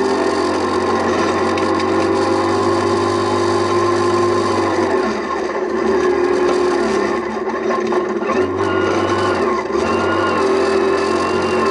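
Rally car engine running hard at high revs, heard inside the cabin. The revs sag about five seconds in and again around seven seconds, then climb in steps toward the end as the car accelerates through the gears.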